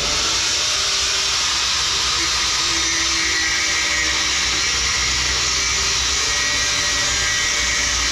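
Angle grinder running steadily against steel with a loud, even hiss.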